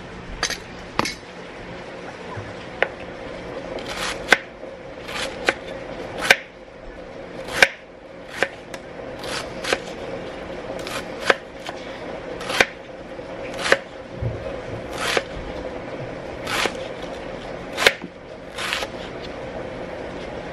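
Kitchen knife slicing a head of cabbage into thin shreds on a plastic cutting board: crisp, irregular cuts about once a second, some with a short crunch through the layered leaves.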